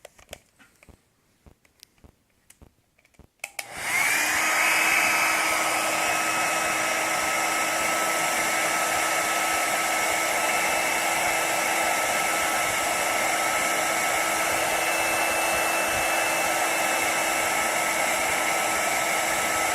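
A few light clicks of handling, then a hair dryer switches on about three and a half seconds in and runs steadily, heating the adhesive under a control panel pad to soften it.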